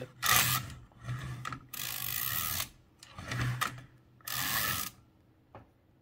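Mechanism of a Toshiba BW-3112 kanji typewriter worked by hand: five short rasping, ratcheting strokes of metal parts moving against each other, then quieter near the end.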